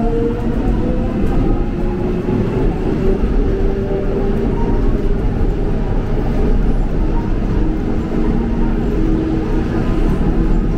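Subway train running along the track: a steady rumble of wheels on rails with the hum of its traction motors, a few tones drifting slightly in pitch.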